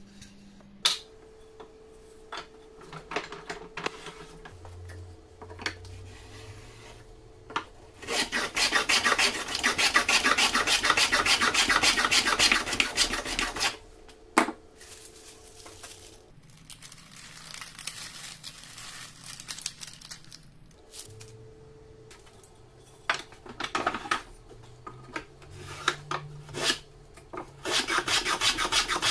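Wooden hand plane cutting a rebate along the edge of a board, shaving wood in long passes, with scattered knocks of wood on the bench between the passes.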